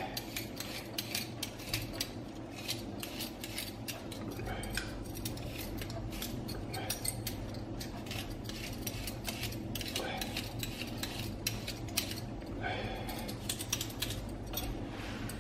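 Metal vegetable peeler scraping strips off a broccoli stalk, a dense, irregular run of short scraping strokes, over a steady low hum.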